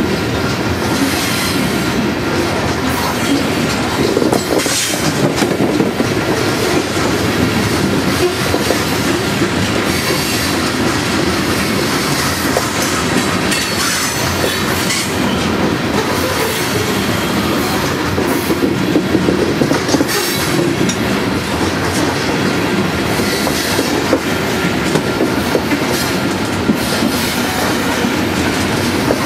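Coal train cars rolling past close by: steady noise of steel wheels on rail, with irregular clicks and clanks.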